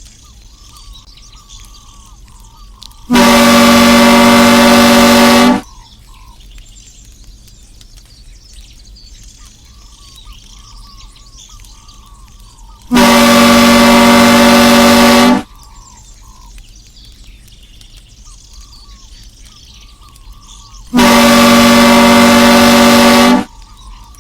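Train horn sounding three long, very loud blasts at a steady pitch, each about two and a half seconds long and eight to ten seconds apart. Between the blasts, a background of repeated chirping calls.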